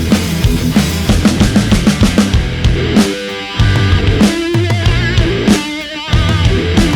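Heavy metal background music with a drum kit and distorted guitars, including a wavering guitar lead about halfway through.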